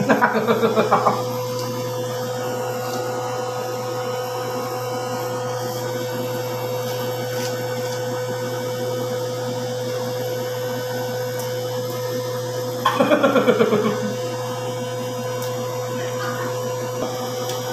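A steady machine hum with a constant tone, like a motor or fan running. A voice breaks in twice with short bursts of quick pulses lasting about a second each: at the start and about 13 seconds in.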